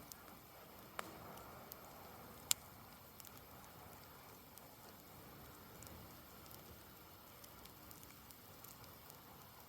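Campfire burning: a soft hiss with scattered small crackles and two sharp pops, one about a second in and a louder one about two and a half seconds in.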